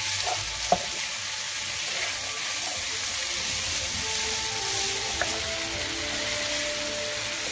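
Diced pork and frozen green peas sizzling in a frying pan as they are stir-fried with a wooden spatula, with a sharp knock just under a second in. Soft background music comes in about halfway.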